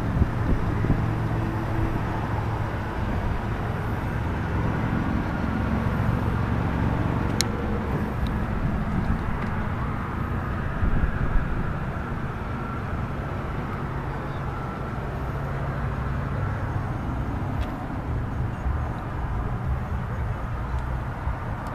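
2008 Chevrolet Avalanche's engine running steadily, with a low hum and a haze of noise. There is a sharp click about seven seconds in and a brief louder bump near eleven seconds.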